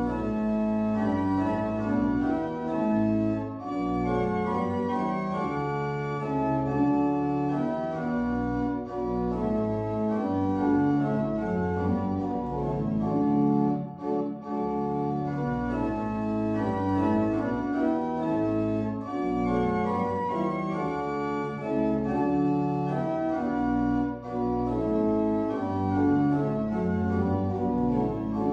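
Pipe organ playing sustained chords over a pedal bass, the phrases breaking off briefly about every five seconds.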